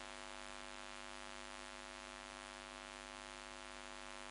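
Faint, steady electrical mains hum with hiss from the microphone and sound system, with no speech.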